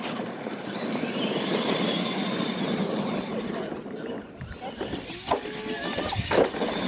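R/C monster trucks racing on a dirt track: motors and gears whining with a rising whine early on, tires churning dirt, and two sharp clacks in the last couple of seconds as a truck jumps a ramp and lands.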